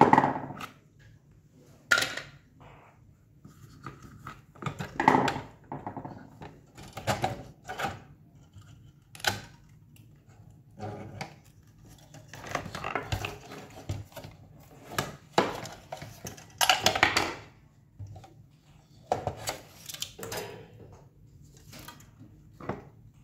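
Irregular plastic clicks, knocks and scrapes as an induction cooktop's circuit board is unscrewed and pried out of its plastic housing, loudest at the very start and in a few bursts partway through.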